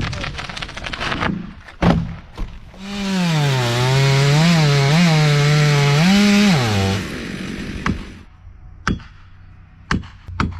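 Gas chainsaw revving and cutting for about four seconds, its pitch dipping and rising with the throttle and load, then dropping away. Before it, crackling and a sharp thud; near the end, a few sharp knocks.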